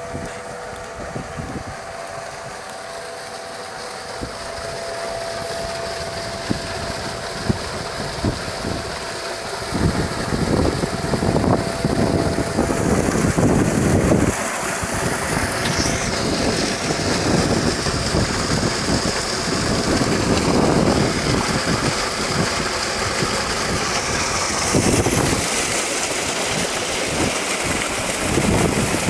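Water gushing from a tube well's 5-inch delivery pipe into a brick tank, a steady rushing that gets louder about ten seconds in as the outlet comes close, with wind buffeting the microphone. A faint steady hum runs under it for the first dozen seconds, then fades.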